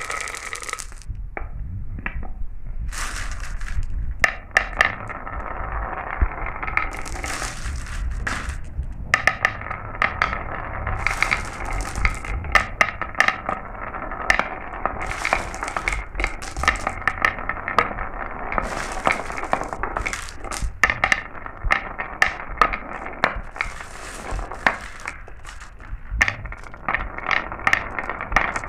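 Marbles rolling down a marble run: a continuous rolling rumble with frequent sharp clicks and clinks as the marbles knock against the track and each other.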